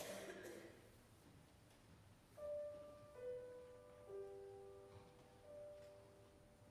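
Soft piano notes played one after another, each ringing on and slowly fading, starting a couple of seconds in. A brief rustle sounds at the very start.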